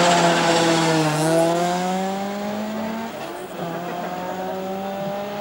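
Toyota Corolla hillclimb racing car's engine pulling away from the start line. The revs dip about a second in and climb, break for an upshift about three seconds in, then climb again as the car gets fainter.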